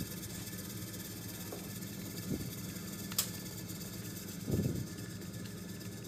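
LG top-load washing machine, converted from inverter drive to a standard motor, running with a steady low hum. A sharp click comes about three seconds in, and two short dull thumps around two and four and a half seconds.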